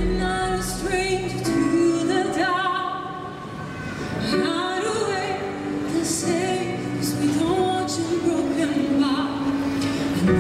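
A woman sings into a microphone, holding long notes with vibrato, over backing music.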